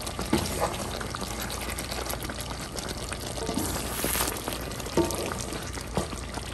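A wooden spoon stirring short ribs and vegetables in thick braising sauce in a large nonstick pan: wet sloshing with small clicks of the spoon against the meat and pan.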